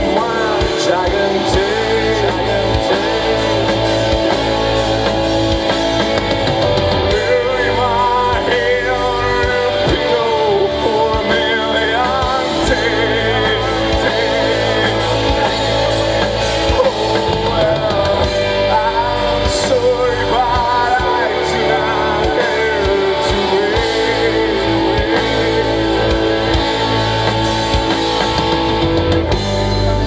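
Live rock band playing electric guitars and a drum kit, with a man singing.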